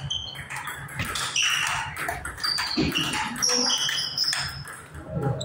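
Table tennis rally: a celluloid ball struck back and forth, making sharp, irregular clicks off the bats and the table. Short high squeaks from shoes on the tiled floor come in between.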